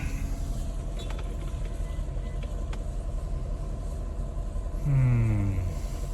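Steady low rumble of road traffic. About five seconds in, a person gives a long groan that falls in pitch.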